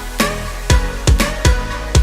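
Background music: an electronic dance track with a heavy kick drum about twice a second over a sustained bass and synth chords.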